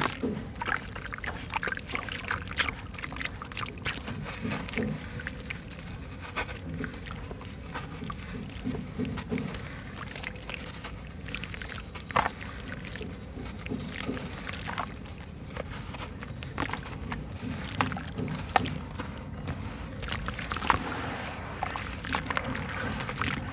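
Lumps of dry white sand-cement crumbled by hand into a basin of water: irregular gritty crunching and crackling, with pieces and powder splashing in and the water sloshing as the hands work the wet mass.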